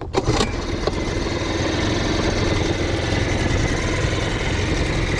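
Small outboard motor on an inflatable dinghy starting up, with a few sharp knocks as it catches, then running steadily. It grows louder over the first second or two as the boat gets under way.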